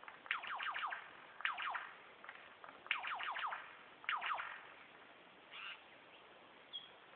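Superb lyrebird calling: four bursts of four or five quick notes, each sweeping sharply down in pitch, about a second apart. Fainter notes follow near the end.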